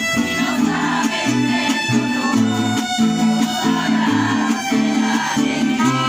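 Mariachi band playing an instrumental passage: violins carrying the melody over strummed rhythm guitars and a bass line that changes note about every half second.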